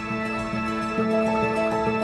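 Background music with slow, held instrumental notes; it grows fuller and louder about a second in.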